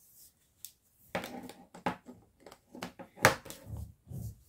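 Plastic tubes and clamps of a Q-Snap embroidery frame being handled and fitted together: a run of short clicks and knocks, the loudest a little past three seconds in.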